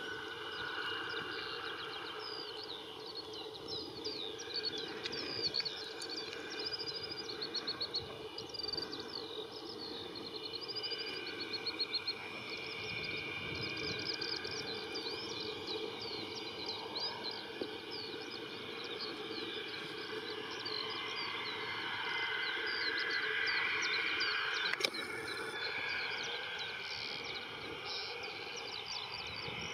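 Small birds chirping and trilling over a steady background hum, with one sharp click near the end.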